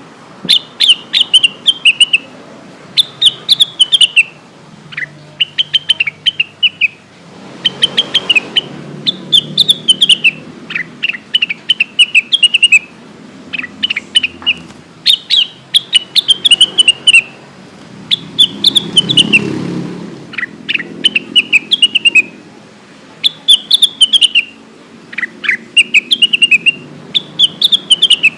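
Cucak wilis, a leafbird, singing short phrases of quick whistled chirps that fall steeply in pitch, one phrase about every second and a half.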